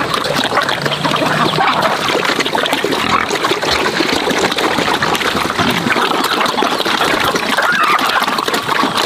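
Water splashing and trickling steadily, a dense run of many small splashes.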